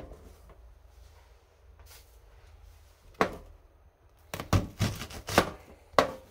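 Kitchen knife cutting an onion on a cutting board: a single sharp knock about three seconds in, then a quick run of knife strikes on the board in the last two seconds.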